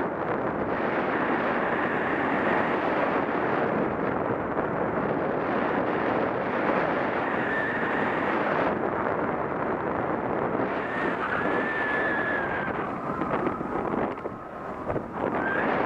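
Airflow of a paraglider flight rushing over an action camera's microphone: steady wind noise. A faint thin whistle comes and goes, and the rush eases briefly near the end.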